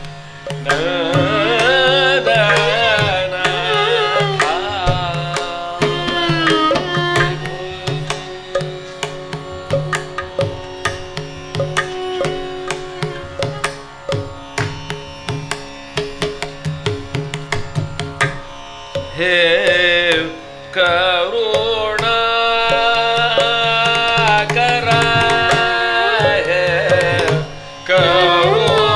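Carnatic classical music in raga Yamuna Kalyani: a male voice sings gliding, heavily ornamented phrases with a violin following him, mridangam and ghatam strokes keeping rhythm, over a steady tanpura drone.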